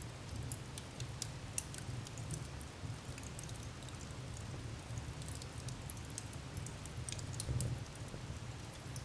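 Wood fire burning in a fireplace: irregular sharp crackles and pops over a low steady rumble, with a slightly louder soft thump about seven and a half seconds in.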